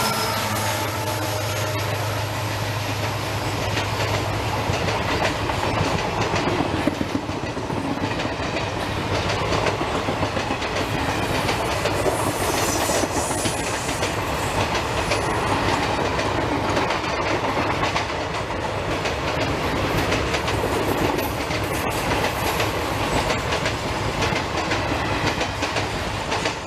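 A passenger train's coaches rolling past at speed, a steady rush of wheel and rail noise with rapid clickety-clack over the rail joints. A low engine hum fades away in the first few seconds.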